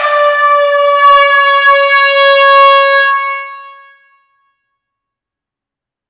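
Air horn giving one long, loud blast on a single steady note, dipping slightly in pitch as it starts, fading out about four seconds in.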